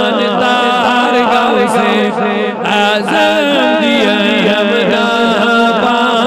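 A man chanting a manqabat, a sung devotional poem, in one continuous melismatic line. A steady low tone holds under the voice.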